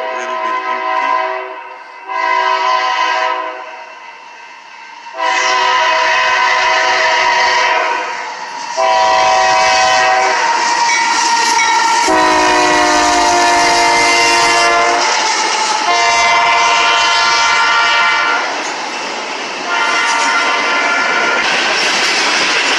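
Freight locomotive's multi-chime air horn sounding a series of blasts: two short ones, then longer ones. The chord drops in pitch about halfway through as the locomotive passes. The rumble and rail clatter of the passing train grow underneath and carry on after the last blast.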